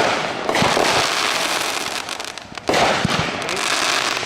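Consumer fireworks going off: a loud burst right at the start and another about two and a half seconds in, each followed by crackling that fades away.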